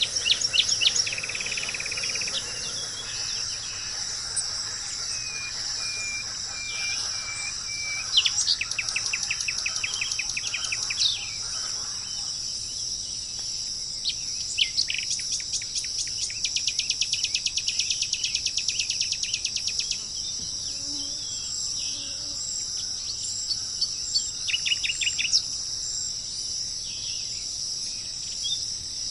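Steady high-pitched insect chorus, with birds calling over it in fast rattling trills, the longest lasting about four seconds, and a short run of repeated single notes.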